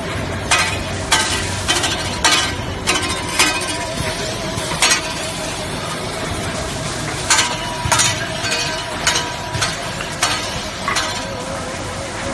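Automatic toilet paper band saw cutting machine and its roll conveyor running: a steady machine hum with a wavering tone, and sharp clattering strokes about twice a second that pause for a couple of seconds midway.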